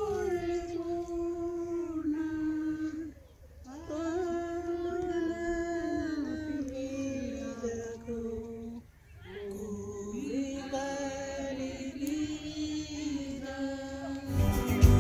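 Women's voices singing a slow hymn together, long held notes in phrases with two short breaks for breath. About a second before the end, loud music with guitar cuts in.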